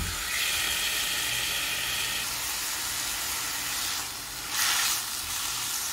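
Marinated chicken pieces sizzling in oil in an iron kadai over a medium gas flame. A knock at the very start, and about four seconds in the sizzle dips briefly before coming back louder.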